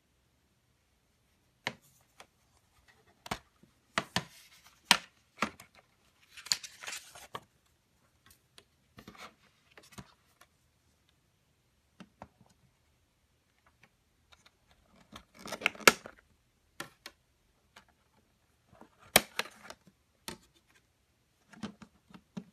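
Irregular plastic-and-metal clicks, snaps and brief rustling from a Blu-ray steelbook being handled: the metal case is opened and the discs are pried off the clear plastic tray's hubs. The loudest snaps come in two clusters past the middle.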